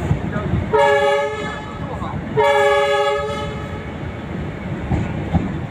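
Approaching locomotive sounding its horn in two blasts, each about a second long with a short gap between, over the low rumble of the train.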